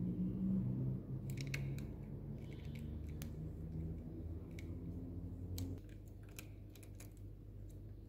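Small, sharp clicks and taps of a Torx key working at the plastic switchgear housing on a BMW GTL's handlebar, over a low hum that drops away about six seconds in.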